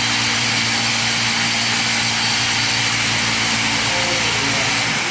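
A machine running steadily with a loud hiss and a low hum, winding down near the end.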